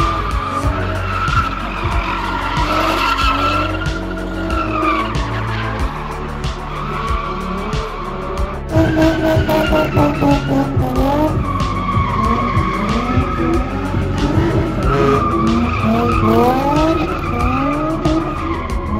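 Nissan Z cars drifting in a burnout box: engine revving in repeated rising sweeps and tyres squealing as they slide, with background music mixed in.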